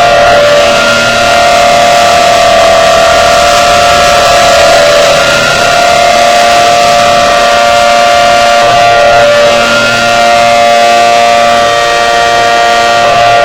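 Outdoor warning siren sounding a loud, steady tone. The pitch holds level with small wavers, and the loudness dips slightly now and then.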